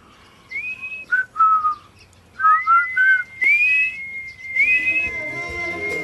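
A person whistling a tune: short phrases that slide up into a high held note and fall back to lower notes, repeated. Near the end, backing music with a long held tone joins in under it.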